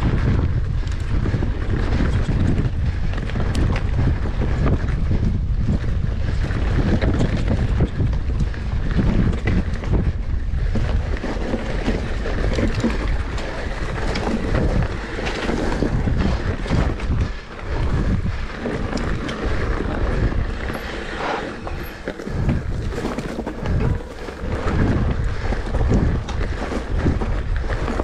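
Wind buffeting the microphone: a loud, uneven low rumble that rises and falls with the gusts.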